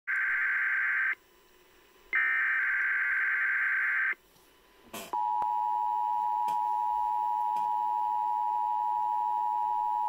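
NOAA Weather Radio weekly test signal: two harsh, buzzing bursts of SAME digital header data about a second apart, each lasting about a second, then a click and the steady 1050 Hz warning alarm tone held for about five seconds.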